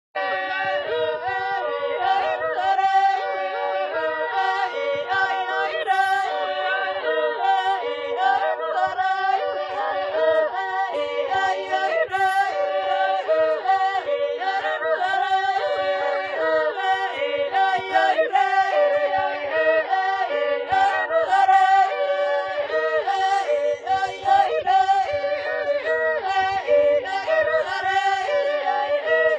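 Voices singing a song a cappella in harmony, with a steady rhythm and no clear instruments.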